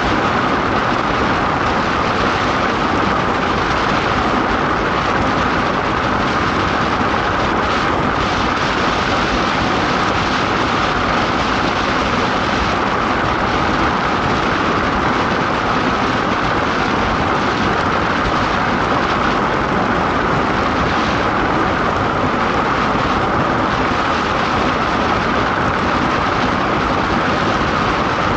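DN iceboat running fast over the ice: a steady, loud rushing noise of the runners on ice, with a steady mid-pitched ring in it and no change in level.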